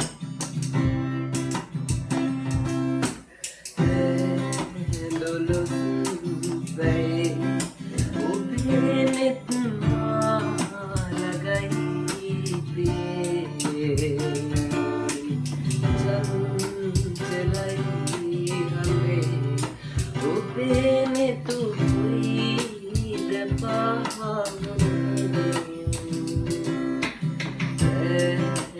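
Music: an acoustic guitar strummed in a steady rhythm, with a young male voice singing over it from about eight seconds in.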